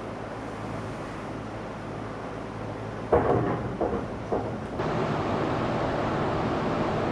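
An engine running steadily. A little after three seconds in come three loud, sudden sounds, then from about five seconds in it runs louder, as if throttled up.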